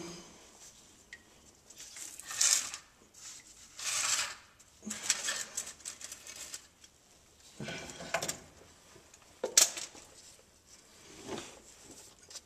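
Irregular short rustling and clattering noises, about seven in all, while oil drips from a loosened spin-on oil filter into a drain pan.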